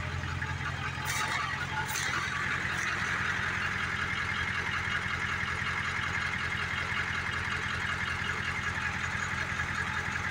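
Peterbilt semi truck's diesel engine idling steadily on its first start-up, with a fast even low pulse. A few short sharp clicks sound in the first three seconds.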